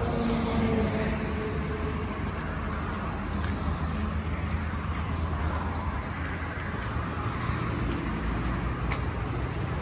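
Steady road traffic rumble, with a passing vehicle's engine note falling in pitch at the start.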